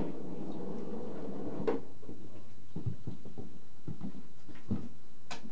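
Sharp clicks of pool balls striking, one about two seconds in and another near the end, with a few dull low knocks between them.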